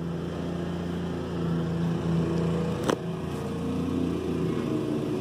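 Ford Fusion 3.0 V6 engine running steadily. The car has a suspected crank sensor fault, with stalling and long cranking. A single sharp click comes about three seconds in.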